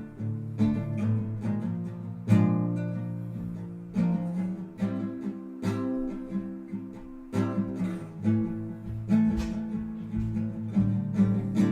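Acoustic guitar playing an instrumental passage, strummed and picked chords that ring out between strokes.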